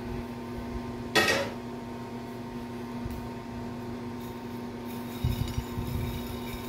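Roasted coffee beans stirred by hand on a ceramic plate: a single sharp clatter about a second in, then a soft rattling of beans near the end, over a steady low hum.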